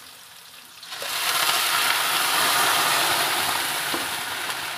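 Pre-boiled goat meat and its broth going into hot oil with sautéed garlic, onion and chili, setting off a loud sizzle about a second in that slowly eases.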